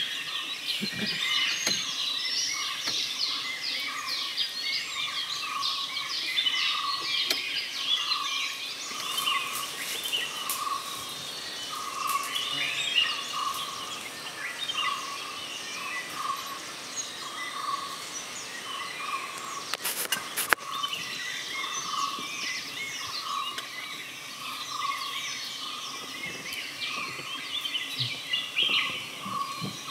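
Forest bird chorus: many birds chirping and trilling, while one bird repeats a single note about once a second. A couple of sharp clicks sound about twenty seconds in.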